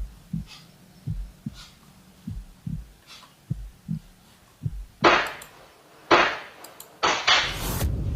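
Heartbeat sound effect: slow, paired low thumps repeating about once a second. About five seconds in, several sudden, loud bursts of harsh noise cut in over it.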